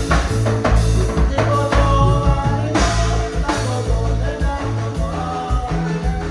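Latin band music with singing, a heavy bass line and drums.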